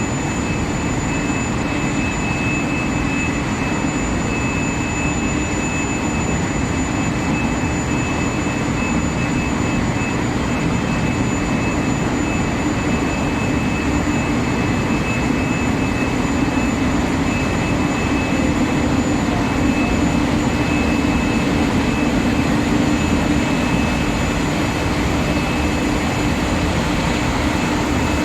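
Induction quenching and tempering line for steel bar running steadily: a constant industrial noise with two thin, steady high-pitched whines over it and a low hum.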